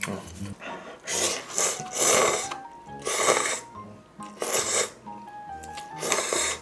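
Noodles from a cup of instant ramen being slurped in about five loud, hissy pulls, with short pauses between them.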